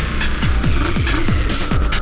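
Electronic techno-style background music with a steady deep kick drum beating about twice a second.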